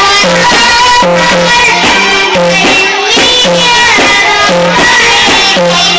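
Arabic song music with a steady repeating bass beat under a winding melodic line.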